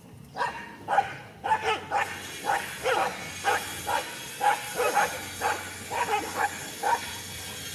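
Dogs barking during a scuffle: short, sharp barks about twice a second, starting about half a second in.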